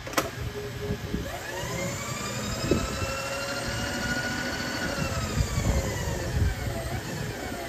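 A click, then a motor whine that rises in pitch about a second in, holds, and sinks away near the end as the milling machine table traverses the vise past a dial test indicator.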